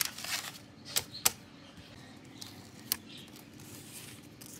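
Paper rustling and a few sharp clicks as a spiral-bound notebook's pages are turned and handled: a rustle at the start, then two clicks about a second in and another near three seconds.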